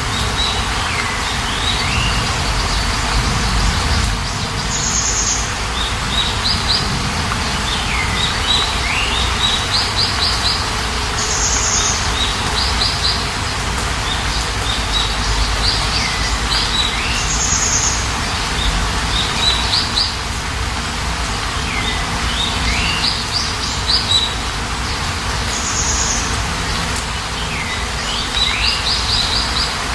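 Steady rain with a songbird singing the same short phrase over and over, about every six seconds: a high note, a quick run of trills and a swooping call.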